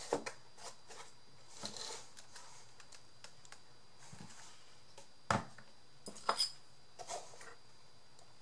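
Scattered small clicks and taps of craft materials being handled, with two sharper knocks a little past halfway, over a faint steady high-pitched whine.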